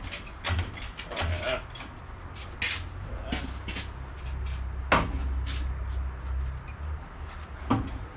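Irregular metal clanks and knocks from hand tools working on a rusted car body and frame, with a loud sharp knock about five seconds in and another near the end.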